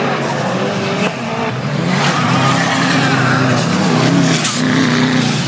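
Off-road 4WD race vehicles' engines running hard on a dirt course, their pitch rising and falling as they rev and shift.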